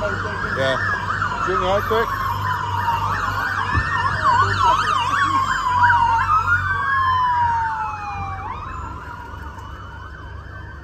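Several emergency vehicle sirens sounding at once: overlapping wails rising and falling, with stretches of fast yelping in the middle. They fade somewhat after about eight seconds.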